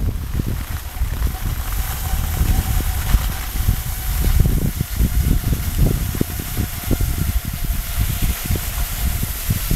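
Wind buffeting the camera microphone in irregular gusts, under a steady hiss of cross-country skis gliding along a groomed track.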